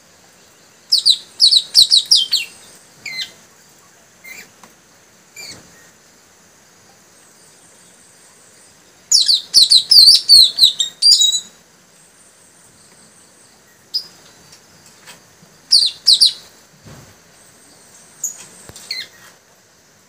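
Male puling songbirds giving bursts of rapid, sharp, high chirping song: a loud flurry about a second in, a longer and louder one around the middle, then shorter bursts and a few single falling notes.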